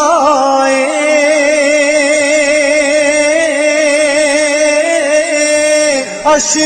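Solo voice singing an Urdu naat, holding one long wavering note on the word 'khataayen' (sins) for about six seconds before a short breath near the end.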